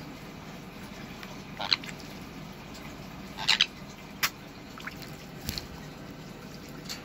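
Sun conure bathing in a plastic tub of water, with a few short, sharp sounds about two seconds in, a double one about three and a half seconds in, and another just after, over a low steady hum.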